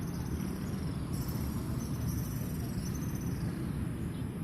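Insects chirring in a high, steady trill over a continuous low rumble.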